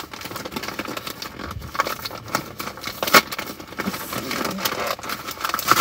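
Plastic packaging crinkling and rustling with irregular sharp crackles as a package is handled and opened, the loudest crackle about three seconds in.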